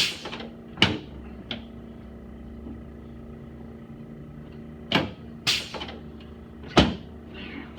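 Chiropractic drop table's drop pieces snapping down under adjustment thrusts: a series of sharp clacks, about six in all, with a pause in the middle and the loudest near the end.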